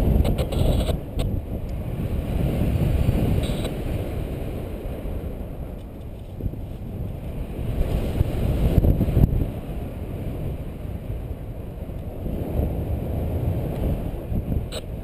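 Wind buffeting the camera microphone of a paraglider in flight: a low, gusty rumble that swells and fades, with a few brief clicks.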